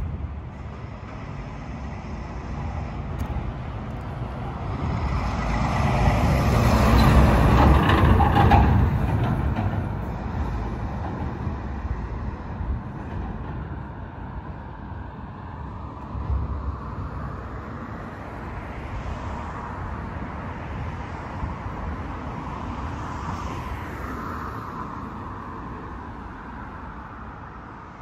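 A motor vehicle passing along the street close by, growing louder to a peak about seven or eight seconds in and then fading away; a second vehicle passes more quietly later on.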